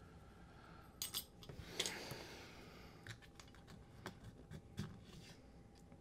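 Faint clicks and taps of small plastic parts being handled and pressed together: a plastic fitting tool and filter keepers on a climate-control solenoid board. The two strongest clicks come about a second in and just before two seconds, followed by a run of lighter clicks.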